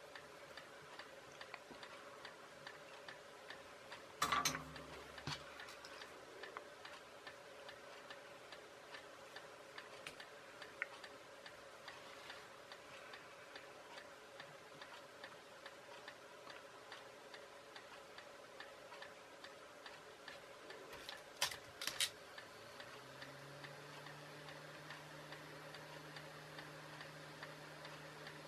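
Steady, regular ticking over quiet room tone, broken by a few sharp knocks about four seconds in and twice just after twenty seconds. A faint low hum comes in near the end.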